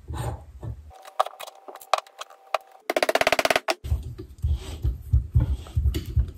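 Steel mill spindle parts being handled and tapped on a workbench: sharp metal clicks, one leaving a brief ringing tone, then, about three seconds in, a fast rattling run of about a dozen clicks as a spanner wrench works the nut on the bearing housing, followed by duller handling knocks.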